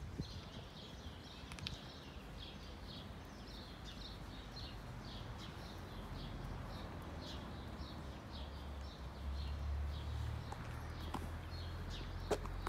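A songbird repeating short, high chirps two to three times a second, over a low outdoor rumble that swells from about nine to twelve seconds in.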